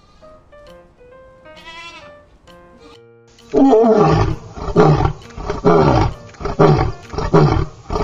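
A lion roaring: one long full roar about three seconds in, then a run of shorter roars, each falling in pitch, about one every half second, over background music. Before it, about two seconds in, a single bleat.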